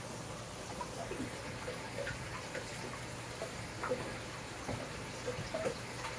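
Water in a shallow terrapin tank: irregular small watery plips and clicks as two ornate diamondback terrapins move and feed on pellets, over a steady low hum.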